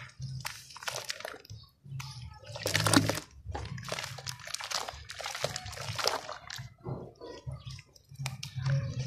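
Hands squeezing and kneading soft wet sand-and-cement paste in a tub of muddy water: irregular squelching and splashing, with one louder splash about three seconds in.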